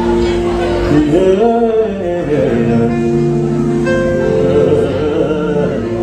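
Live gospel band holding long keyboard chords, with a man singing over them, his voice sliding up and down about a second in.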